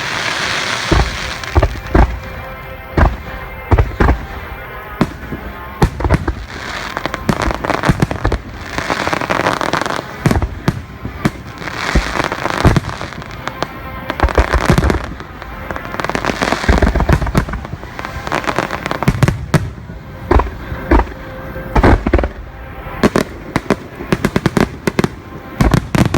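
Aerial fireworks shells bursting one after another with sharp, loud booms at an uneven pace, broken by stretches of dense crackling lasting a second or two.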